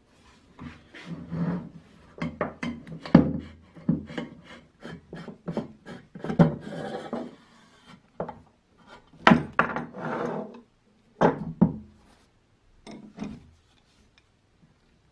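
Knocks and clunks of an old hand-pump sprayer's metal parts and wooden handle being handled on a wooden bench, with scraping and rubbing as the plunger rod is drawn out of the pump barrel. Frequent sharp knocks, thinning out near the end.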